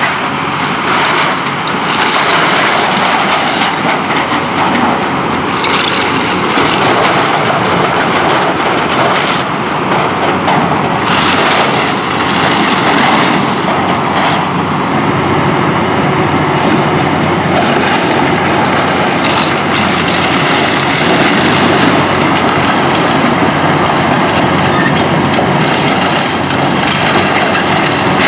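Large tracked excavator (Kobelco SK485) running steadily while its bucket tears into a wood-frame house, with repeated cracking, splintering and crashing of falling wood and debris over the engine.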